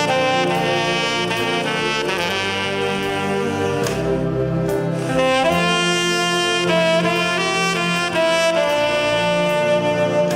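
Saxophone orchestra playing a slow ballad: long held melody notes over sustained chords from the lower saxophones.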